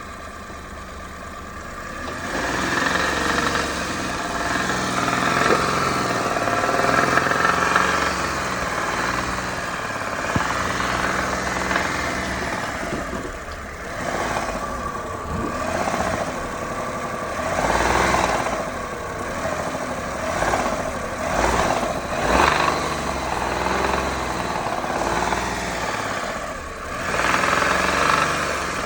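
Engine idling, then revved up and held, followed by several short blips of the throttle, each rising and falling in pitch. It carries an extraneous hum that grows with the revs, which the owner cannot explain.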